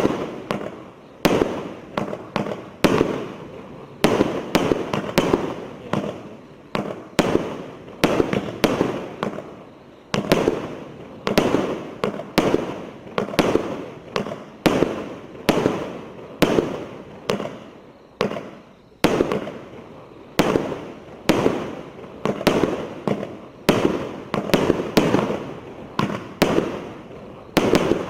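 A 120-shot consumer fireworks battery (cake) firing in a continuous run of sharp bangs, about one to two a second, each fading away before the next.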